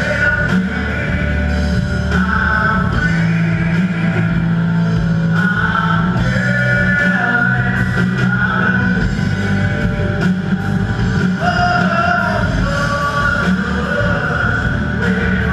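Live rock band playing loud amplified music, with singing, electric guitar and a drum kit.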